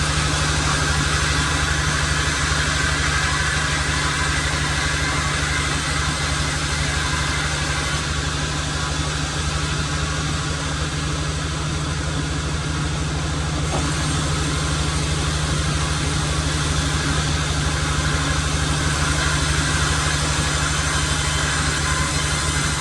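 Sawmill machinery running steadily: a constant low engine hum with a hiss above it and no change in load.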